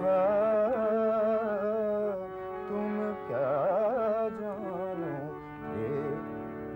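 Harmonium playing an Indian classical melody with a voice singing along, its line wavering in quick ornamented runs about three and a half seconds in.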